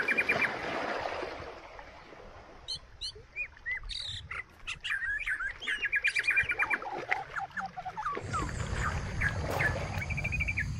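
Small birds chirping: many short, quick chirps and trills, some gliding up or down in pitch. A low rumble joins about eight seconds in.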